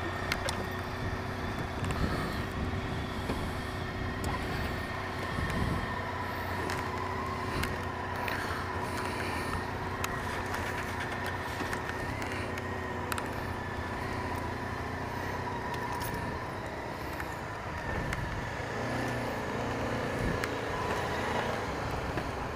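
Motorcycle engines running at idle, heard through a microphone inside the rider's helmet, with a steady whine running over the low rumble.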